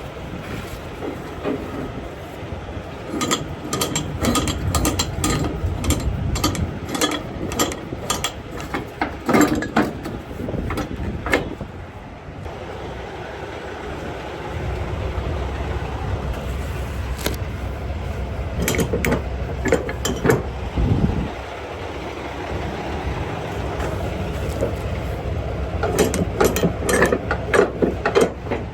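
Bursts of rapid metallic ratcheting clicks, plausibly flatbed strap winches or ratchet straps being cranked tight on the load, over a steady low engine rumble. A long run of clicks comes in the first half and another short run near the end.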